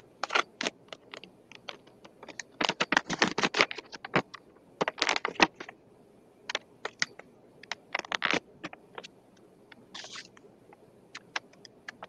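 A sheet of paper being folded and creased by hand: crackly rustles and scrapes in several short clusters.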